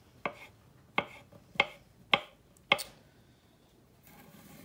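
Kitchen knife slicing white button mushrooms on a wooden cutting board: five sharp knocks of the blade on the board, a little over half a second apart, then a soft rustle near the end.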